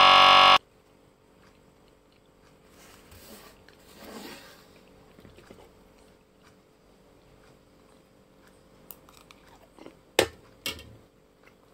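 Music cuts off suddenly in the first second. Then faint chewing, and near the end two sharp clicks of a metal utensil against a plate.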